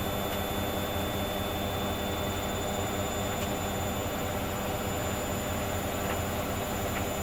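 Hoover Dynamic Next washing machine running steadily on a cotton 40 °C programme with a half load: a constant motor hum and drum rumble, with thin high whines held level throughout.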